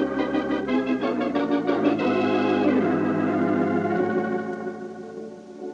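Dramatic organ music bridge: fast repeated chords for about two seconds, then a held chord that fades away, marking a scene change in a radio drama.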